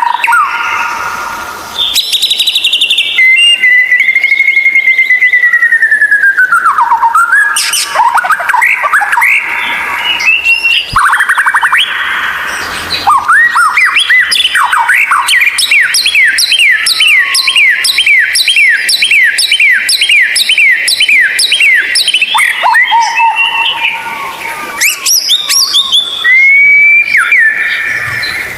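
White-rumped shama singing a varied song: long gliding whistles, then a long run of repeated short down-sweeping notes about two a second, then more whistled phrases near the end.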